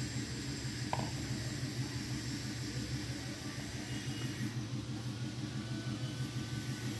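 A steady low mechanical hum, with a faint click about a second in.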